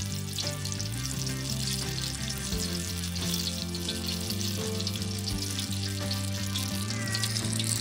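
Gram-flour-battered green chillies (mirchi bajji) deep-frying in hot oil, with a steady crackling sizzle. Background music with sustained chords plays over it.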